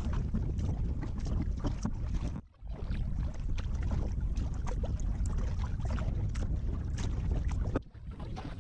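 Kayak paddle blades dipping and splashing in calm water, with drips off the blades, over steady wind noise on the microphone. The sound cuts out briefly twice, once about a third of the way in and once near the end.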